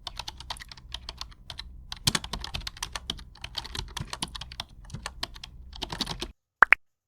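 Quick irregular clicking and tapping of hard plastic pieces, an action figure and its accessories being handled, which stops abruptly; just after, a short rising chirp.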